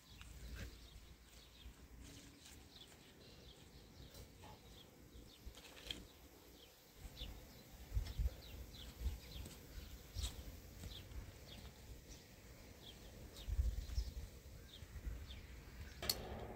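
Faint, repeated short chirps, likely small birds calling, with a few low rumbles such as wind on the microphone, about eight seconds in and again near the end.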